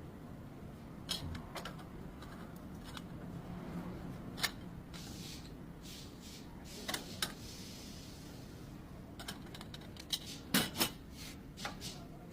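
Scattered sharp clicks and light knocks of hand tools and parts being handled during tie rod work, densest about ten seconds in, over a low steady background hum.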